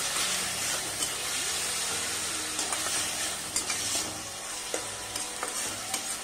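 Chopped tomatoes and onions frying in oil in a kadai, sizzling steadily, while a slotted spatula stirs them with scattered scraping clicks against the pan.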